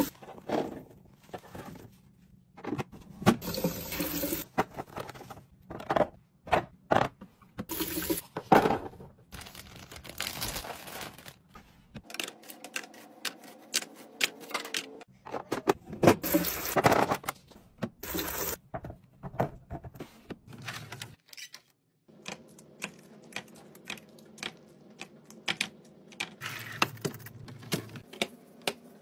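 Fridge restocking sounds: containers and packaging handled and set down, with many short clicks, taps and clatters, and a few stretches of liquid being poured or running.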